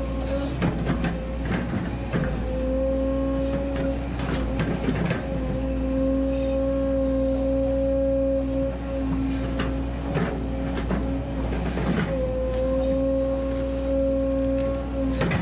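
Volvo 140 hydraulic excavator working under load: its diesel engine runs with a steady hydraulic whine that drops out briefly a few times as the boom and bucket are worked. Scattered knocks and cracks come from the bucket digging soil and roots out around a eucalyptus stump.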